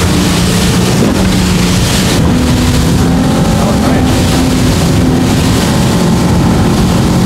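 Motorboat engine running at speed, the boat underway with a steady engine note that shifts slightly higher about two seconds in, under heavy wind buffeting the microphone and water rushing past the hull.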